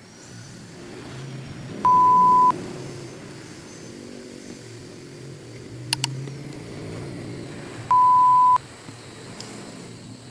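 Two identical electronic beeps, each a plain steady tone lasting just over half a second, about six seconds apart. A sharp double click near the middle, over a low background rumble.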